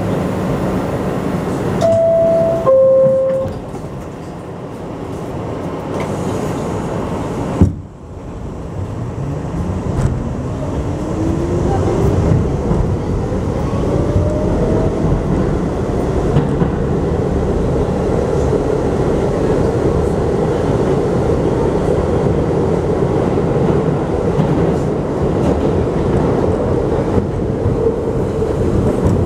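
Subway train on the 7 line: a two-note falling door chime about two seconds in, a sharp click near the middle, then the traction motors whine steadily higher in pitch as the train accelerates away, settling into a steady running rumble of wheels on rails.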